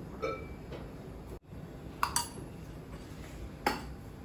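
A metal spoon clinking against a metal kadhai (Indian wok) as ghee is scraped off it into the pan, with two sharp clinks about two seconds in and near the end.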